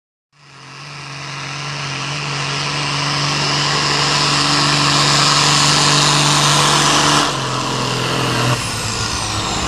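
Diesel engine of a John Deere hot farm pulling tractor running flat out under load down the pull track, its pitch held steady while it grows louder. It drops back about seven seconds in and again near the end as the throttle is let off.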